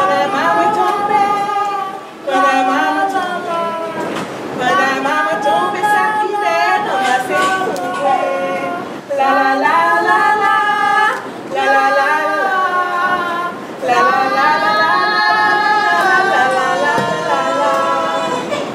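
Young female voices singing a song together in short phrases of a second or two, with brief breaks between them.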